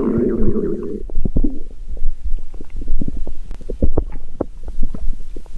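Stomach growling: a long bubbling gurgle for about the first second, then a string of short, irregular gurgles and pops.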